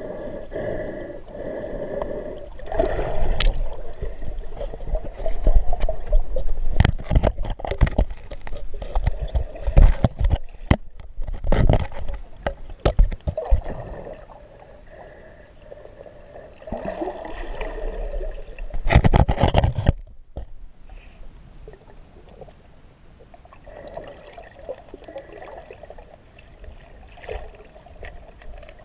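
Muffled underwater sound picked up through a GoPro's waterproof housing held under river water: sloshing, gurgling water with many knocks and scrapes against the housing. It is loudest and busiest in the first twenty seconds, with a strong surge just before the twenty-second mark, then settles to a quieter murmur.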